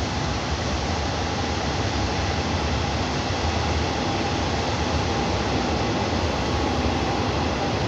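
Steady noise of a diesel long-distance train at the station, with a faint steady hum and no breaks or clatters.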